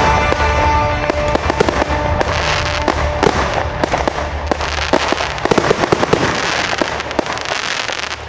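Aerial fireworks going off in a rapid string of sharp bangs and crackles, densest in the middle and thinning toward the end. Music plays underneath, clearest in the first second.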